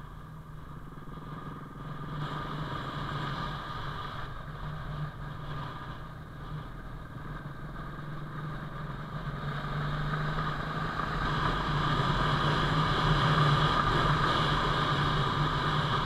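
Suzuki Intruder VS700 V-twin motorcycle engine running steadily while riding, at an even pitch, growing louder about two-thirds of the way through.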